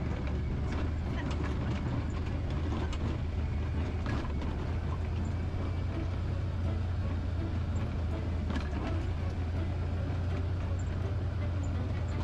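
Side-by-side off-road vehicle driving on a bumpy dirt track, heard from inside the cab: a steady low engine drone with scattered knocks and rattles.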